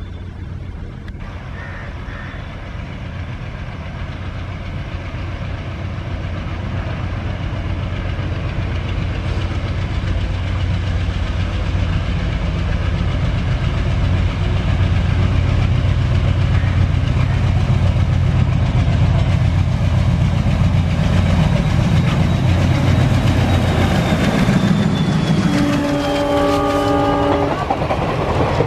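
ALCo WDM3A diesel locomotive's turbocharged 16-cylinder engine working as it climbs toward the listener, growing steadily louder, with a high whine that falls in pitch as it passes. Near the end comes a short horn blast of about two seconds, then the passing coaches' wheel clatter.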